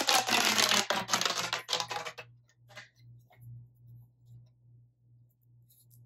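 Plastic fidget toys being pulled and worked by hand: a dense run of rapid clicks and crackles lasts about two seconds, then thins to a few scattered clicks. A faint low hum runs underneath.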